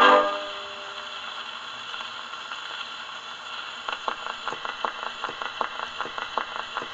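Last banjo note of a 78 rpm record dying away on a portable wind-up gramophone, then the record's surface hiss. From about four seconds in, a steady run of regular clicks: the needle in the run-out groove at the end of the record.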